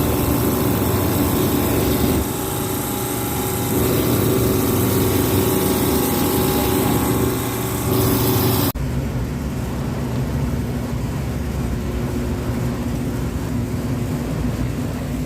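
Industrial refrigeration machinery running steadily: a loud mechanical hum with a hiss over it. The hiss cuts off suddenly about nine seconds in, leaving a lower, steadier hum.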